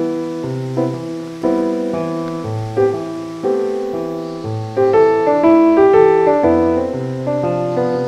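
Background piano music: chords over a moving bass line, each note struck and fading away.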